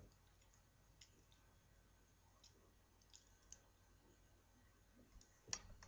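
Near silence broken by a handful of faint, short clicks spaced irregularly, with a louder click near the end.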